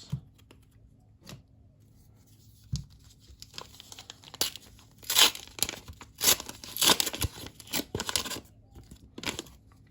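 A trading-card pack wrapper being torn open and crinkled: a run of tearing and crackling strokes over about five seconds, starting near the middle.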